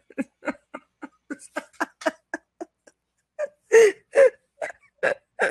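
A woman laughing behind her hand: a quick run of short, breathy laughs, about four a second. After a brief pause they break into louder laughs over the last two seconds.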